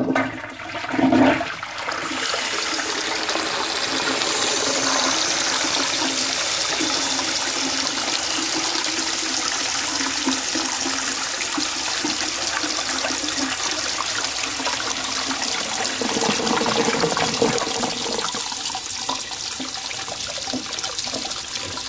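Low-level toilet cistern flushing through its siphon, a short rushing surge at the start, then the brass float valve refilling the cistern with a steady hissing spray of water that splashes onto the siphon.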